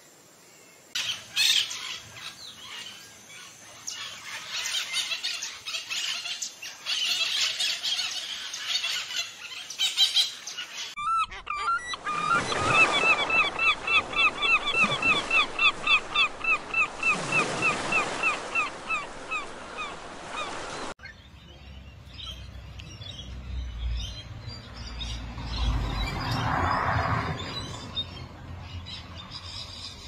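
Wild birds calling across three edited stretches. First comes busy chirping and twittering. Then, for about ten seconds, gulls give a fast run of repeated honking calls, about four a second. Near the end there are quieter scattered calls over a low rumble.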